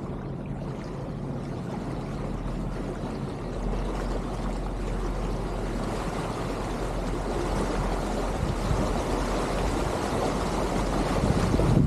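Passenger motor ship getting under way: a steady low engine hum under the rush of churning water from its propeller wash, growing louder as the ship gathers speed.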